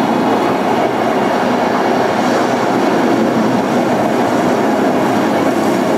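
Ocean surf breaking on a rocky shore: a loud, steady wash of wave noise, played back from a projected video through room speakers.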